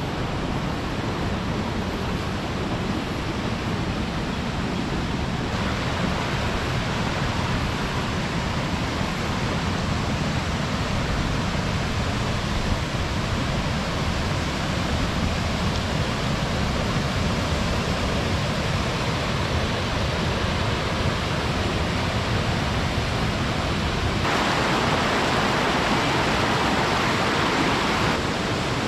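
Lata Kertas waterfall: water rushing and splashing in a steady roar of noise with no break. It grows louder and brighter for a few seconds near the end.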